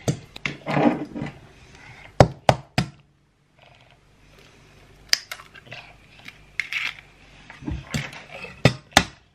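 A metal spoon and eggs tapping against a stainless steel mixing bowl, giving sharp, irregular clinks and scrapes. The loudest cluster of three clinks comes about two seconds in.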